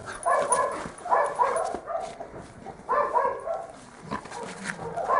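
Large dog making short vocal sounds while play-mouthing a person's hand and rolling over: three brief bursts in the first few seconds, with another beginning near the end.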